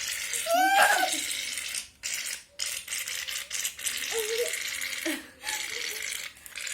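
Aerosol can of shaving cream hissing and sputtering in broken spurts as it is pressed: the can is nearly empty. A child's brief squeal sounds near the start, with short bits of voice a little later.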